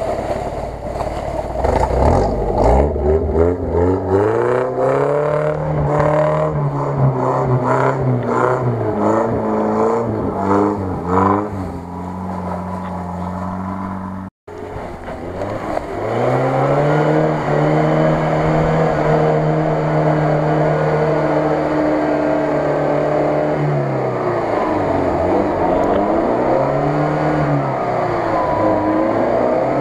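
UAZ-469 off-roader's engine revving up and down under load, its pitch rising and falling. About halfway through it cuts out to silence for a moment, then it runs at a steady pitch, with a few dips in revs near the end.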